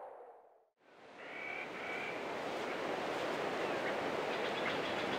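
A sustained tone fades out to a moment of silence. Outdoor ambience then fades in: a steady hiss with a few short bird calls about a second later.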